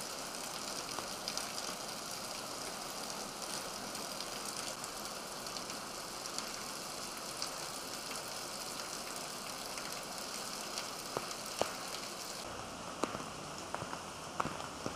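Heavy rain pouring onto a street, a steady hiss. Near the end, single drops splash with sharp ticks close by.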